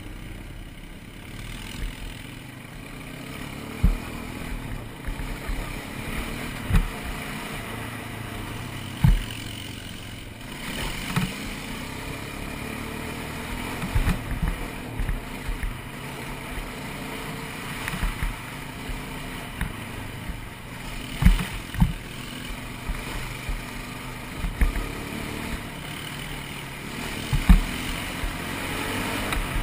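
ATV engine running steadily while riding a trail, its drone rising and falling a little. About a dozen sharp low thumps break in at irregular intervals.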